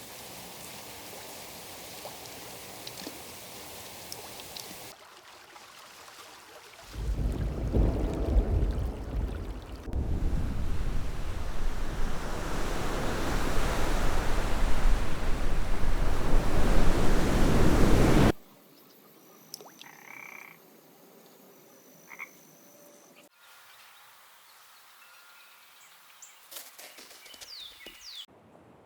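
Foley-made nature soundscape cutting between scenes: frogs croaking, a loud rushing noise that builds for about ten seconds and then cuts off suddenly, and a quieter stretch of scattered short calls and chirps.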